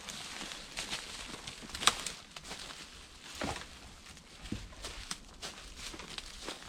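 Irregular rustling and crackling of forest-floor leaves and twigs, with a sharp snap about two seconds in.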